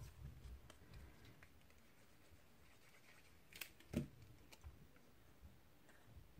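Quiet handling of small pieces of cardstock and patterned paper as they are picked up and pressed in place, with two soft taps a little past the middle.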